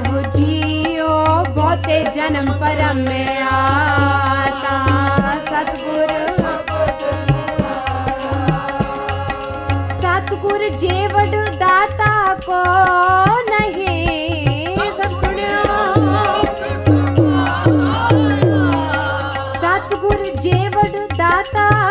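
Sikh kirtan: women's voices singing hymns over a steady harmonium drone, with tabla playing a repeating beat.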